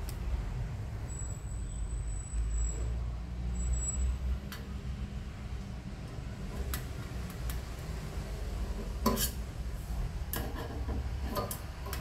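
Light clicks and taps of multimeter test probes being handled and touched to a microwave magnetron's metal terminals, a few scattered and a small cluster near the end, over a steady low rumble.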